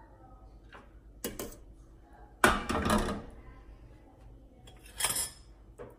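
Metal clanks and knocks as a stainless-steel pressure cooker lid is handled and set down on the gas stove's metal grate: a short knock about a second in, the loudest clatter about two and a half seconds in, and another knock near the end.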